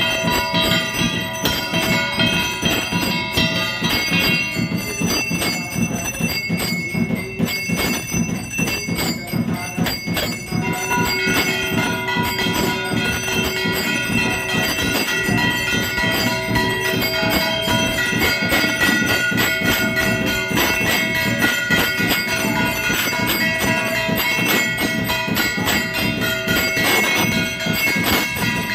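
Temple bells ringing continuously for an aarti. Several bells of different pitch are struck rapidly over and over, with a dense metallic clanging.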